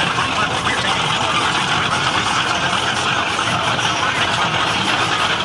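Boat engine running steadily as a rough, even noise.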